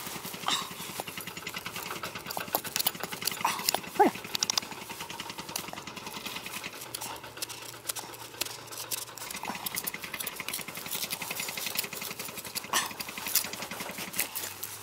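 Gloved hands and a small hand trowel brushing and scraping through dry, crumbly soil: a continuous gritty scratching and crackling. A short whine is heard about four seconds in.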